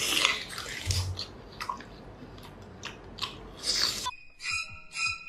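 Close-miked wet chewing and biting of a whole octopus. Music with steady tones cuts in suddenly about four seconds in.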